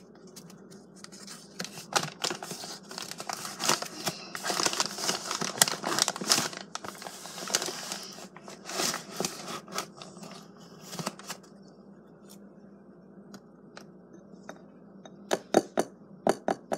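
A large paper flour bag crinkling and rustling as it is handled, for several seconds. Near the end come a few sharp clicks of a spoon against a glass mixing bowl.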